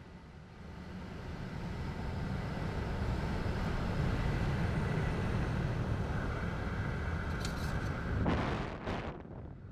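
Wind rushing over the onboard camera of a flying large-scale model airplane, building over the first few seconds, with two brief louder gusts near the end.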